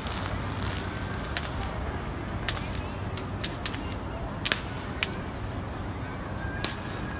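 Firecrackers going off: about a dozen sharp cracks at irregular intervals, some close together, over a steady background hum.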